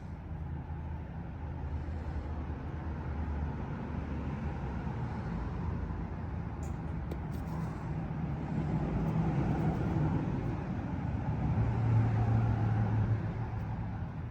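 A motor running steadily with a low hum, growing louder to a peak about twelve seconds in, then easing off near the end.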